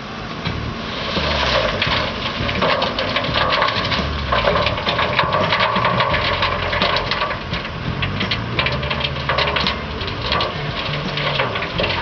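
JCB backhoe loader's diesel engine running, its pitch rising and falling with load, with many sharp clatters and scrapes of earth and stones over it.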